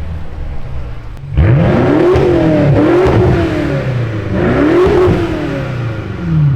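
BMW X5M F85's twin-turbo V8 through an Fi Exhaust catback, running low, then opening up sharply about a second and a half in and rising and falling in pitch several times as it is revved and driven hard before easing off near the end.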